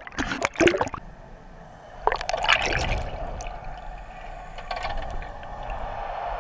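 Pool water heard from a camera going underwater: a splash, then muffled gurgling and bubbling from about two seconds in, over a steady hum.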